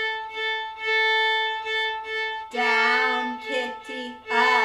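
Fiddle bowing its open A string in a shuffle stroke: one long note followed by two short ones, repeated steadily on the same pitch.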